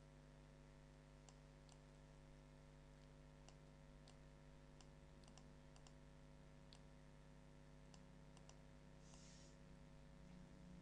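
Near silence: faint, irregular computer mouse clicks, a dozen or so, over a steady low hum.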